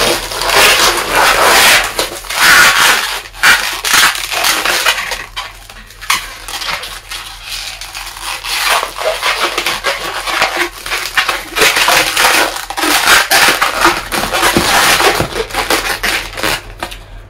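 Inflated latex modelling balloons being bent and twisted by hand, the rubber rubbing against itself and the fingers in loud, uneven bursts, with a short lull about six seconds in.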